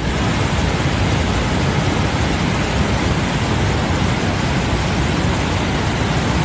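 Muddy floodwater pouring through a dam's spillway gates and churning downstream: a loud, steady rushing of water.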